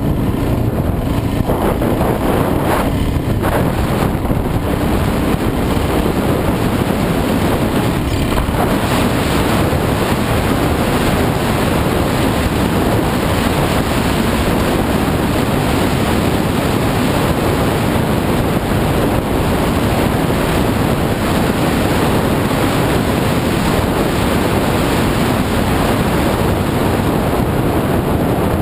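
Wind rushing over the helmet camera's microphone at riding speed, mixed with a dirt bike's engine running steadily and its tyres on gravel.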